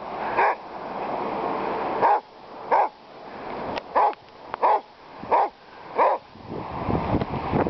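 Basset hound giving about seven short, breathy barks, with panting noise swelling between them, as he labors through deep snow. Low rumbling wind noise comes in near the end.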